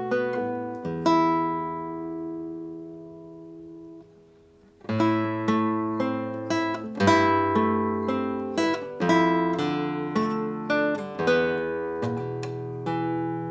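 Acoustic guitar music: plucked notes and chords that ring and die away, fading to a brief pause about four seconds in, then resuming.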